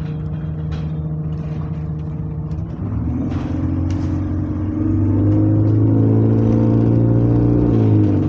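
Bus engine heard from inside the passenger cabin, pulling harder from about three seconds in. It grows louder and holds a steady note, then eases off near the end.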